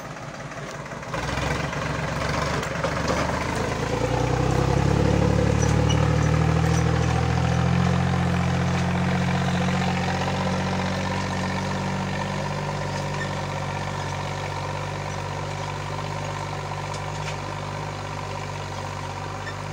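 Escort tractor's diesel engine running steadily under load while pulling a disc harrow. It grows louder over the first few seconds, then slowly fades as the tractor moves away.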